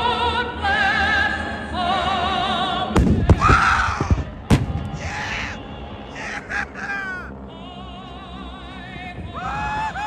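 Dramatic music with operatic singing played over a public-address system. About three seconds in, and again about a second and a half later, sharp loud bangs from airshow pyrotechnic explosions cut through it.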